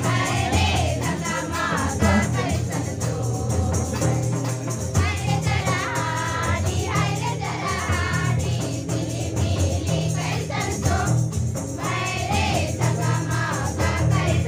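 A group of girls singing a song together in chorus, carried through a microphone and loudspeaker, with percussion accompaniment.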